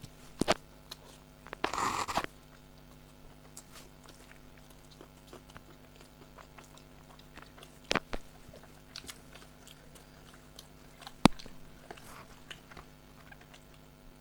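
People eating rice and chicken curry by mouth-close chewing and biting, with a short crunchy burst about two seconds in and a few sharp clicks, the loudest about eleven seconds in.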